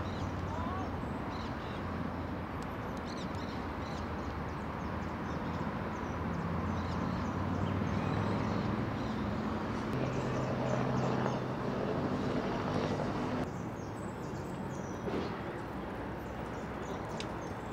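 Steady outdoor background noise with a low hum and faint distant voices, and a few short, high-pitched calls or clicks here and there.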